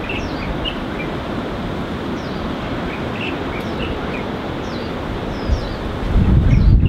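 Birds chirping in short, high calls, many times over, above a steady outdoor hiss; a louder low rumble comes in near the end.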